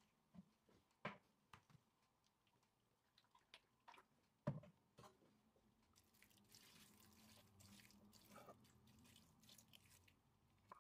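Faint trickle of olive oil poured in a thin stream over rolled cherry-leaf sarma in a pan, from about six seconds in. Before it come a few light clicks and knocks, the loudest about halfway through.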